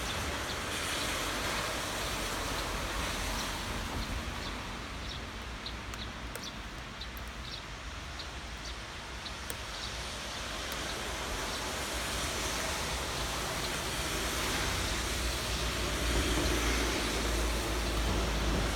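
Steady rain falling as a continuous hiss with a low rumble underneath, with a scatter of faint, short, high ticks in the middle.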